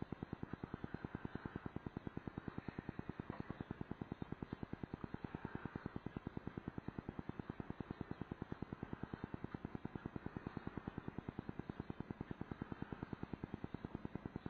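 Steady rapid pulsing buzz, about eight evenly spaced pulses a second, with no change in rate or level: electrical interference picked up on the recording rather than the thread winding.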